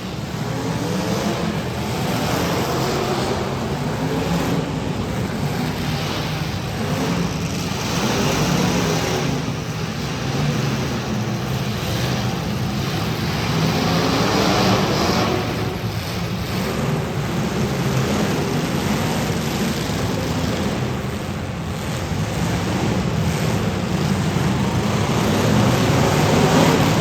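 Several demolition derby cars' engines running and revving hard, their pitch rising and falling again and again over a steady rumble.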